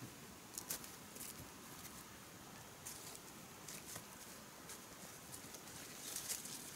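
Faint footsteps rustling through dry leaf litter and undergrowth: an uneven run of soft crackles, busiest near the end.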